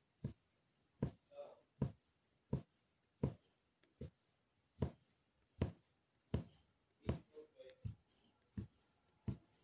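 Punch needle (magic needle) punching yarn through fabric stretched taut on a frame: a steady run of short thumps, about one and a half a second.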